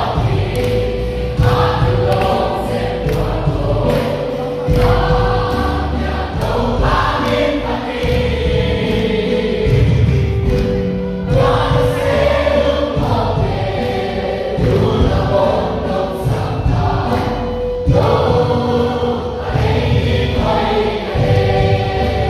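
A group of voices singing a worship song together over instrumental backing, with sustained bass notes that change every couple of seconds.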